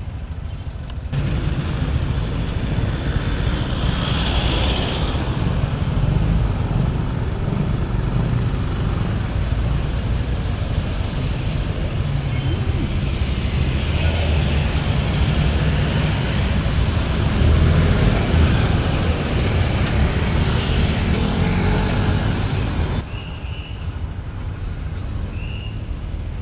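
Riding a motorcycle through city traffic: a steady low rumble of engine and road noise with passing cars around it. The sound jumps up abruptly about a second in and drops abruptly about three seconds before the end.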